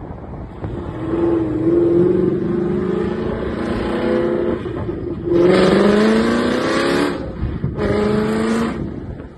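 Ford Mustang GT's 5.0-litre V8 accelerating hard. Its pitch rises in three pulls, the loudest starting about five seconds in, with brief dips between them.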